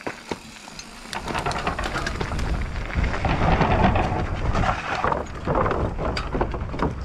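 A mountain bike rolling off down a dirt trail, with wind rumbling on the microphone and tyres on loose dirt. Many sharp clicks and rattles from the bike and stones run through it. It builds up about a second in.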